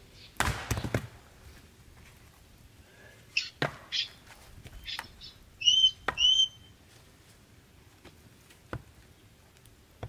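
A splitting axe strikes a log on a chopping block about half a second in, and the split pieces clatter down. Several single wooden knocks follow as pieces of firewood are handled. Near the middle there are two loud, short, high bird calls.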